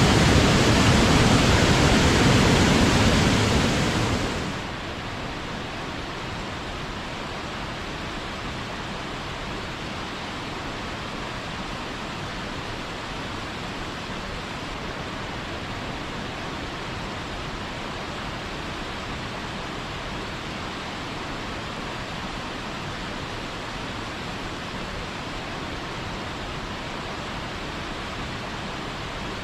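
Waterfall: a steady rush of falling water. About four seconds in it drops suddenly to a quieter, duller rush, as a different waterfall takes over.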